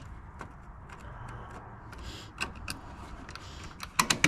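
Light clicks and small knocks from a snowblower's choke mechanism being fitted and worked by hand, with a few sharper, louder clicks near the end.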